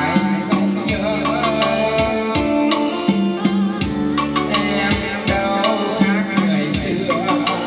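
Recorded music played back through loudspeakers under test: a steady drum beat with a heavy bass line and a melody over it.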